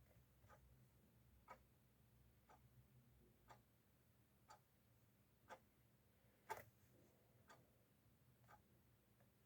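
Faint clock ticking steadily, once a second, with one tick about six and a half seconds in louder than the rest.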